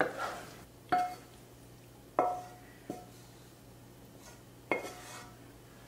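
Kitchenware clinking: about five sharp metal-on-dish strikes spread over a few seconds, each with a brief ringing tone.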